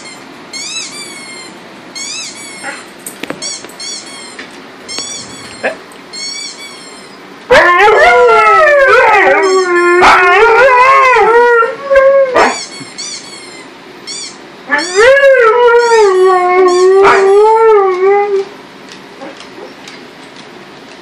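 A rubber duck squeak sound effect played through computer speakers, short high squeaks in quick sets of three or four. About seven seconds in, a Tamaskan dog answers with a long, loud, wavering howl, and howls again about fifteen seconds in while the squeaks continue.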